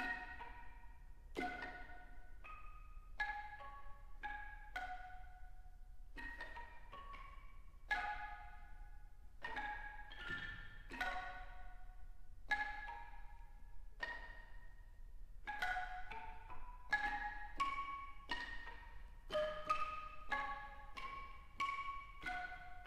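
A large wooden keyed percussion instrument played by several people at once, giving short struck wooden notes and chords that ring briefly and die away. The notes come at an irregular pace and grow denser in the second half.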